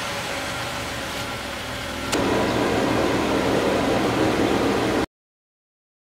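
2011 Jeep Wrangler JK's 3.8-litre V6 idling as a steady low hum under a broad hiss. It grows louder about two seconds in and cuts off abruptly to silence about five seconds in.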